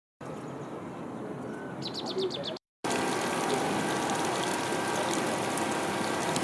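A small bird chirps a quick run of high notes, then a steady hiss of water spraying from a leaking hose fitting on a fire hydrant.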